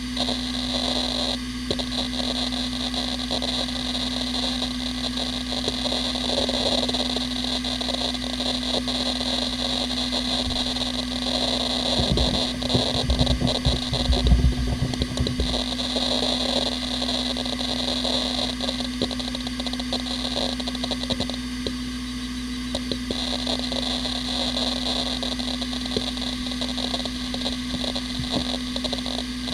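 A Hitachi Ultrastar 15K300 SAS hard drive spinning at 15,000 RPM with a steady high whine and hiss, its heads seeking busily in dense, irregular ticking and chattering as the operating system loads. The drive is in good health. Near the middle, a few seconds of low thuds stand out.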